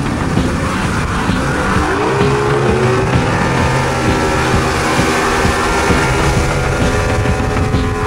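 Yamaha V6 200 two-stroke outboard motor running hard as the boat gets up to speed: its pitch rises about two seconds in and then holds steady, over the rushing of the wake.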